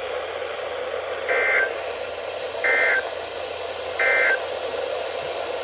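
NOAA Weather Radio SAME end-of-message code: three short bursts of buzzy data tones about 1.3 s apart, marking the end of the warning, over a steady radio hiss.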